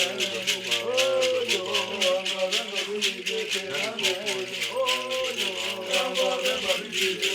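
Bwiti ceremonial music: rattles shaken in a steady fast rhythm, about five shakes a second, with voices singing or chanting over them.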